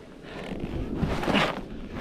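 Snowboard sliding and scraping over snow, with a louder hissing scrape about a second and a half in, and wind rumbling on the microphone.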